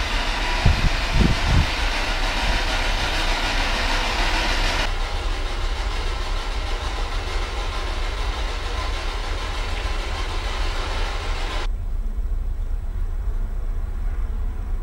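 Steady low rumble with hiss, the background noise of an unattended camera's microphone, with a few low thumps about a second in. The hiss thins abruptly about five seconds in and drops away sharply about three-quarters of the way through.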